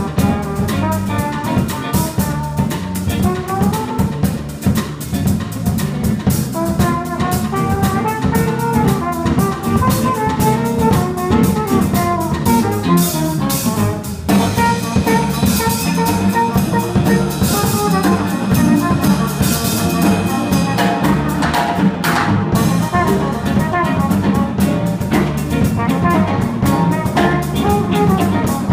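Live jazz-funk band playing: a flugelhorn carries the melody over drum kit, bass, electric guitar and electric keyboard. About halfway through, the band moves into a new section.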